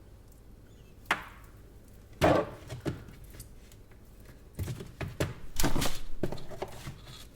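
Hard knocks and cracking as solid, rock-hard chocolate is chipped and broken off a smartphone: a single sharp knock about a second in, a louder one just after two seconds, then a quick run of knocks and crackling in the second half.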